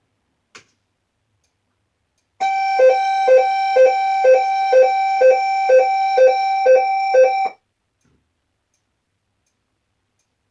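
Electronic alert tone from a voice-evacuation alarm speaker: a steady tone with a lower tone pulsing about twice a second, lasting about five seconds and stopping abruptly. It is the attention tone that comes before a recorded tornado warning announcement. A faint click comes first.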